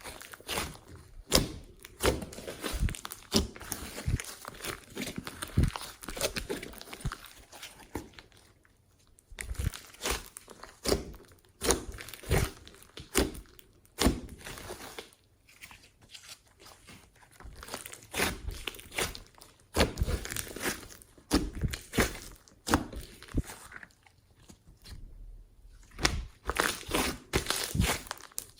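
Hands kneading and stretching glossy slime: sticky slime making quick, irregular clicks and squelchy pops in bursts, with brief pauses.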